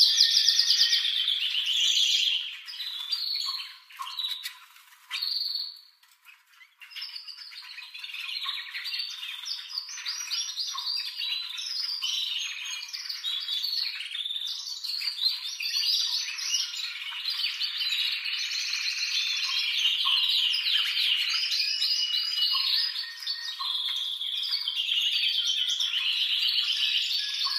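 Male domestic canary singing in excited full song: long, fast rolling trills and warbled phrases, breaking off briefly about five to seven seconds in. The recording is thin, with no low end at all.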